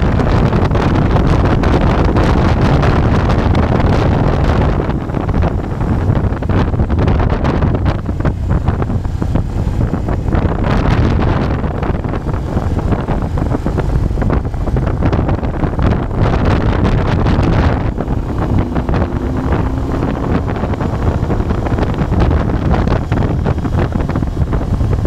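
Wind buffeting the microphone on a moving motorcycle, with the Moto Guzzi Bellagio's V-twin engine running steadily underneath at road speed.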